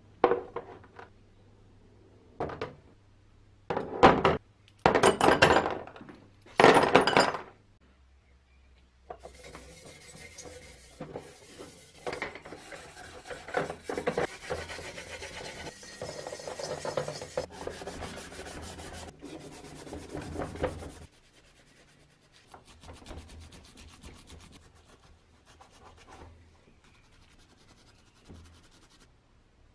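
Green abrasive scouring pad scrubbing the copper tank of an old hand sprayer: a few loud separate bursts in the first eight seconds, then about twelve seconds of steady rough rubbing. In the last third the scrubbing turns fainter and comes in short patches as small parts are rubbed.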